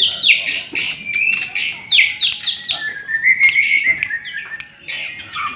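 White-rumped shama singing: rapid runs of sharp, high notes that each sweep down in pitch, with a longer trilling phrase about three seconds in.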